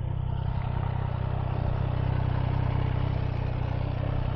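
2018 Yamaha MT-09's inline three-cylinder engine running steadily through an aftermarket exhaust, getting slightly louder.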